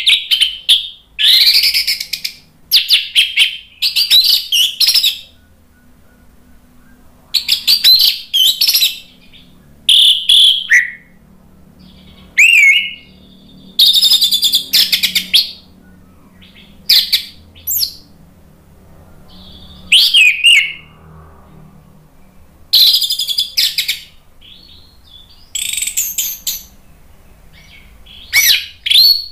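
Orange-headed thrush singing its loud, full song in bursts of rapid, high notes, each about one to two seconds long, with short pauses between them, about a dozen times.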